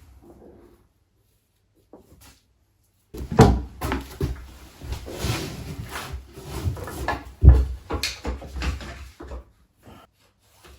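Irregular knocking and bumping as fittings are handled and pushed into place, with two loud thumps about three and a half and seven and a half seconds in.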